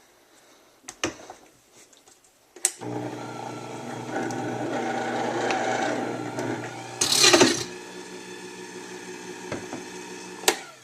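Vitamix 5200 blender motor switched on with a click and running steadily on a low speed, with a brief louder whoosh about seven seconds in, then switched off with a click. The jar holds spinach and water.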